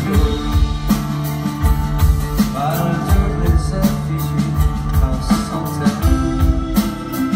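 Live rock band playing with no vocals: drums keeping a steady beat under acoustic and electric guitars.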